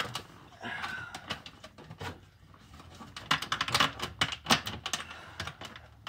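Irregular plastic clicks and rattles from a 1999 Chevrolet Blazer's plastic steering column shroud (clamshell) being worked loose by hand, coming thickest a little past the middle.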